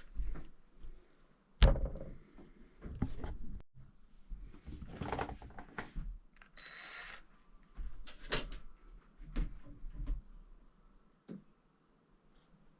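A series of knocks, scrapes and clatter from objects being handled and set down, with one sharp loud knock a couple of seconds in, then quieter near the end.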